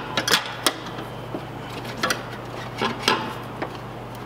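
Irregular sharp metallic clicks and clinks as a metal bracket is worked onto an aluminum intake tube and fastened with a hand tool. The clicks come thickest in the first second, then sparser, over a low steady hum.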